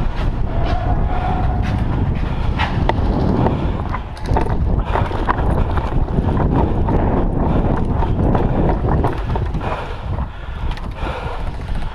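Wind buffeting a body-worn camera's microphone as a low rumbling noise, with scattered clicks and knocks throughout and a brief dip about four seconds in.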